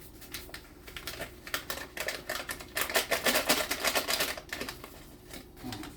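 Rapid crackling and rustling of a packet of strawberry Jell-O powder being handled and emptied, loudest about halfway through.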